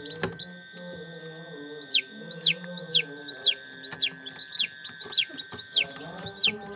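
Chicken chicks peeping: a run of about nine loud, sharply falling peeps, roughly two a second, starting about two seconds in, over background music.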